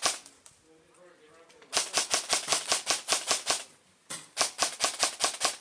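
Airsoft rifle firing in two rapid bursts of sharp snapping shots, about seven a second: the first from about two seconds in, the second starting shortly after it ends and still going at the end.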